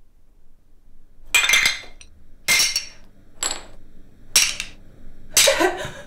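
Shards of a broken ceramic bowl clinking together as they are picked up off the floor, five sharp clinks about a second apart, each with a short bright ring.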